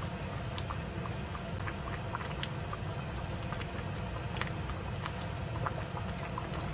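Kimchi stew simmering in a stainless steel pot on a gas burner: a steady low rumble with many small bubble pops scattered throughout.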